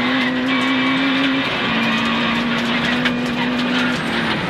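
Rally car engine heard from inside the cabin, held at high revs on a gravel stage with a steady note that briefly breaks and picks up again about a second and a half in and once more near the end, over tyre and gravel noise.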